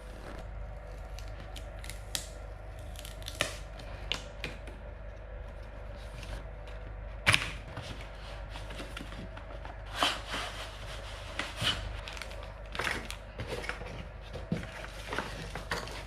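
Cardboard keyboard box being opened and its packaging handled: scattered rustles, scrapes and light clicks, with one sharp knock about seven seconds in and busier handling in the second half.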